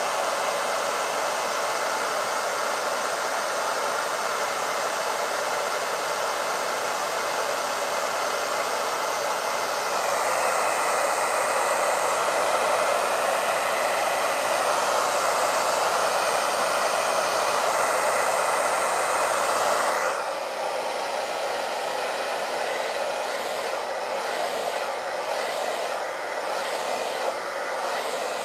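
Hair dryer blowing steadily. It gets louder for a stretch in the middle, then its sound drops and changes about two-thirds of the way through.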